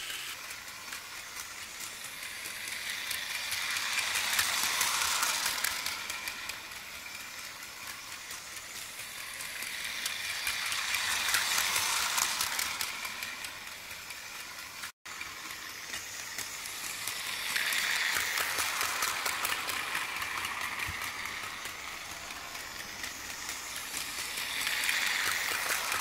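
Battery-powered Plarail Advance E235-series toy train running on plastic track: a steady whir of its small motor and gears with fast clicking of the wheels over the track. It swells each time the train passes close and fades as it runs away, about every six to seven seconds.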